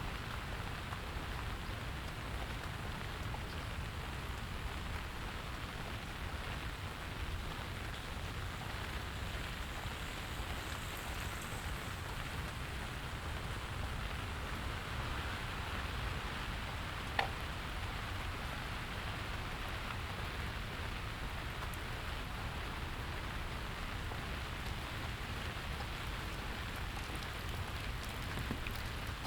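Steady rain falling on surfaces, an even patter with one sharp single tick about two-thirds of the way through.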